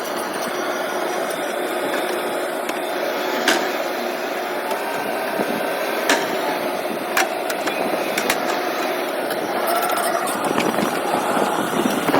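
An engine running steadily, with a few sharp cracks about three and a half, six and seven seconds in.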